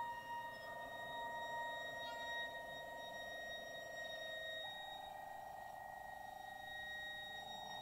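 Violin blended with pre-recorded electronic sounds: long, steady, shimmering held tones with fainter high tones above them. A little over halfway through, the main tone steps up slightly in pitch.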